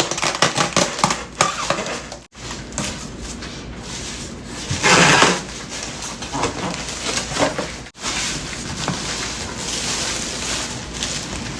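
A toaster oven and its packaging being handled: scattered clicks and knocks, rustling, and a loud rasping burst about five seconds in.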